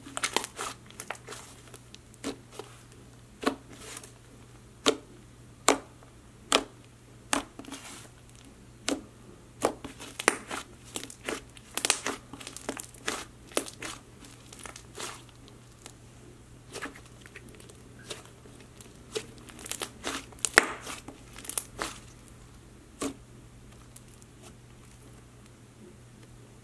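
Pink fluffy clay slime, reworked with lotion and white glue, being pressed, folded and stretched by hand: irregular sticky pops and crackles, several a second, with a few quieter spells.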